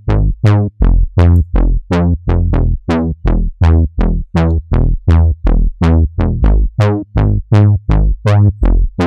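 Trombone-style synth bass from a Native Instruments Massive saw-wave patch, playing a looping line of short notes, about three a second. Each note starts bright and quickly closes down to a dull low tone.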